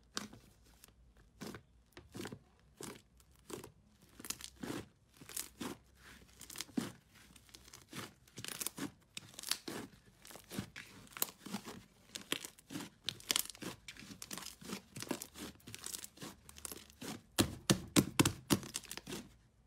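Thick blue slime crackling and popping with small air pops as hands press into it and knead it, a few pops a second, with a quicker run of louder pops near the end as it is pulled and stretched.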